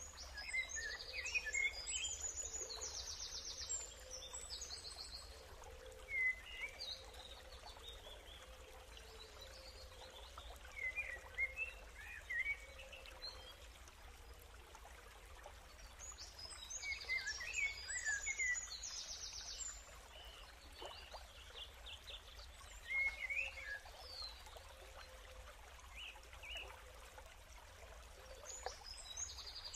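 Songbird chirps and trills over a faint steady hiss. The same burst of trills comes back about every 15 seconds, as from a looped nature soundscape.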